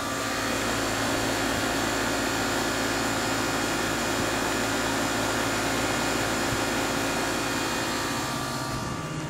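Carrier central air conditioner's outdoor condenser unit running: a steady rush of air from the top fan over a constant electrical hum from the compressor. The rush thins out near the end.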